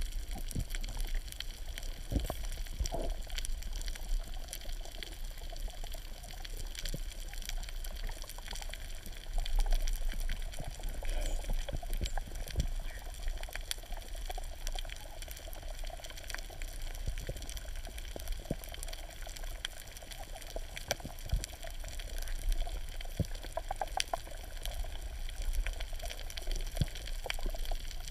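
Underwater ambience picked up by a camera in its waterproof housing while swimming over a reef: a steady low rumble of moving water with many scattered sharp clicks and crackles.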